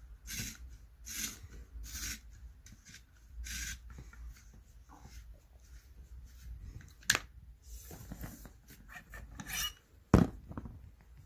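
Blade of a hand-turned tip side cutter shaving the side of a heat-compressed leather billiard cue tip: repeated rasping scrapes, about one a second, as the tool is twisted round the tip. A few clicks and one sharp knock near the end.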